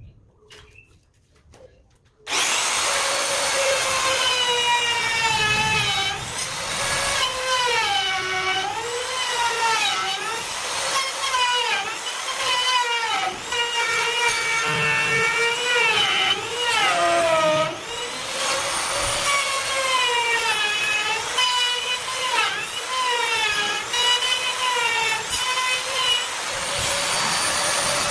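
High-speed electric power tool cutting wood. It starts about two seconds in, and its motor whine dips and recovers again and again as the cutter takes load in the wood.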